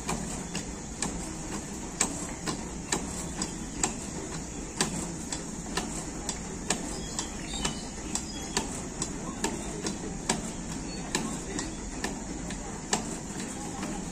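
Outdoor park elliptical exercise machine clicking and knocking at its pedal and handle pivots as it is pedalled, about two sharp clicks a second and not quite even, over steady background noise.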